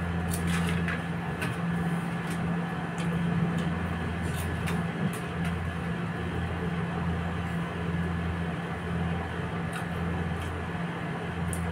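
A steady low mechanical hum, with scattered brief crisp crunches of vegetable-flavoured snack sticks being chewed.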